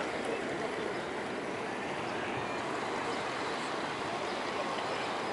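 Gentle surf washing in at the shoreline: a steady hiss of water.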